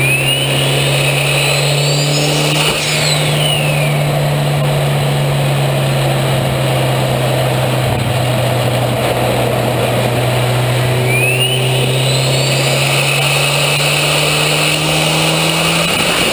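Mitsubishi 4G63T turbocharged four-cylinder engine running at steady raised revs, heard right at the open, mesh-screened inlet of its big turbo. A high whistle sweeps up and down in pitch twice, once near the start and again in the second half.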